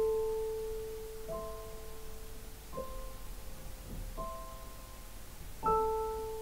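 Yamaha electronic keyboard playing slow, bell-like notes: five notes about a second and a half apart, each struck and left to ring and fade, the first and last loudest.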